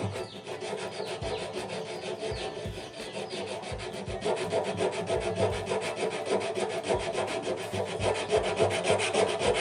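Coarse sandpaper rubbed by hand in quick, short back-and-forth strokes on the bare steel of a Honda Tiger motorcycle fuel tank, scuffing the metal around a hole to prepare it for soldering. The scraping grows louder about four seconds in.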